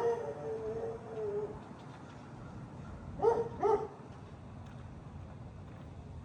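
A dog whines in one drawn-out, slightly falling call for about a second and a half, then gives two short yips close together a little over three seconds in.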